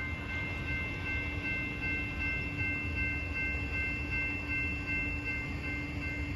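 Railroad grade-crossing warning bell ringing steadily while a train approaches, over a low, steady rumble.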